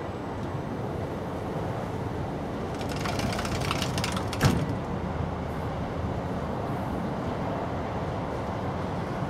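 Steady outdoor background rumble of distant traffic, with a brief crackling rustle about three seconds in that ends in a single sharp knock.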